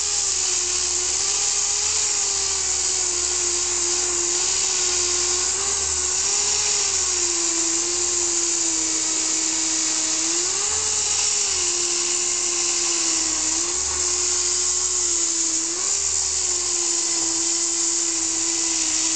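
Power grinder running continuously, grinding through thick body filler on a car body panel, a hissing whine whose pitch wavers up and down.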